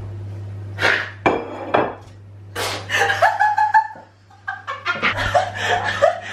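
A woman laughing hard in bursts, breathless and helpless. It is mixed with a few sharp clatters in the first couple of seconds.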